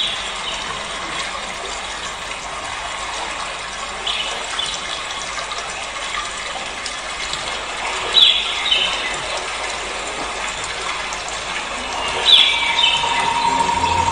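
Recorded nature ambience of a rushing stream or waterfall with birds chirping: a short descending run of chirps about every four seconds over a steady hiss of water. Near the end a steady held note of the dance music comes in.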